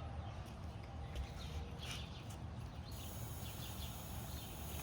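Outdoor ambience: a low rumble of wind on the microphone with a few faint bird chirps. About three seconds in, a steady high hiss starts.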